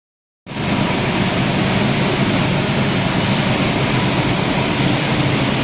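Rice snack extruder production line running: its electric drive motor and machinery give a steady loud mechanical hum and rush, with a faint thin high whine. It starts abruptly about half a second in.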